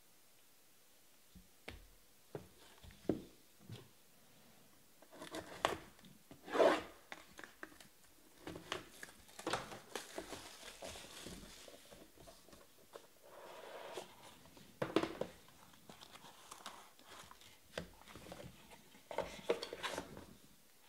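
Hands handling trading cards, a plastic card holder and cardboard card boxes: rubbing and rustling with scattered light taps and clicks. The sharpest tap comes about six and a half seconds in.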